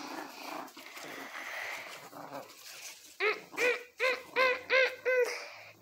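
Fleece blanket rustling and dragging across a bedspread as a Chihuahua tugs on it with its teeth. About three seconds in, a run of six short high calls, each rising and falling in pitch.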